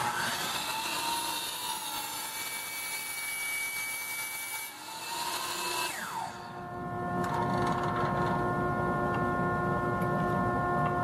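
DeWalt sliding compound miter saw cutting through a wooden board for about six seconds. The motor then winds down with a falling whine. A steady, many-toned machine hum, the dust vacuum on the saw's hose, runs underneath.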